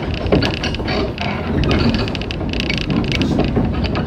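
Inside a local train pulling out of a station: a steady rumble of wheels on rails, with many quick clicks and rattles over it.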